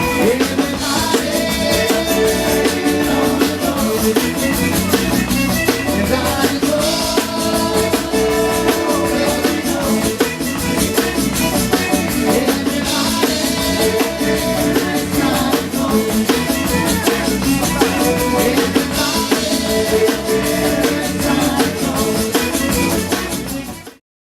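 Band music with a drum kit and shaken rattle-like percussion, playing steadily and cutting off suddenly near the end.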